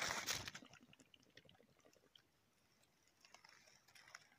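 Crunching and rustling of dry leaves and undergrowth as dead game is handled on the forest floor, loudest in the first half second, then faint scattered rustles and clicks.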